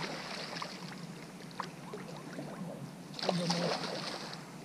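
A hooked pike thrashing at the water's surface at the bank edge as it is drawn into the landing net: splashing, with a longer, louder burst about three seconds in.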